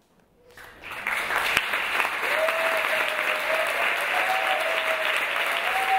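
Audience applauding: after a brief hush, clapping starts about a second in and quickly swells to a steady, dense applause.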